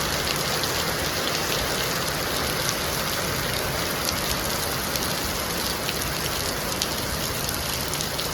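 Heavy rain falling steadily: a dense, even hiss with many sharp drop ticks scattered through it.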